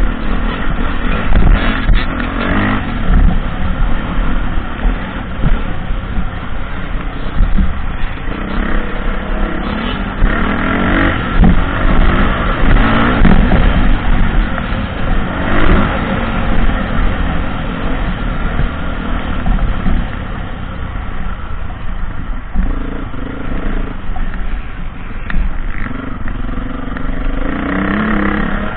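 Dirt bike engine heard from the rider's helmet, revving up and easing off over and over as it rides along a dirt trail, with a heavy low rumble of wind and ride noise underneath.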